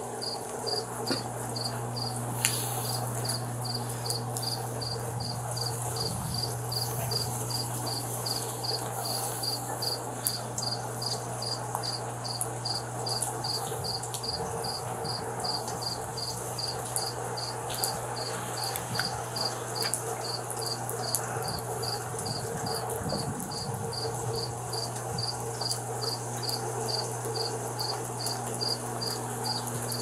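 A cricket chirping steadily, about two chirps a second, over a steady low hum.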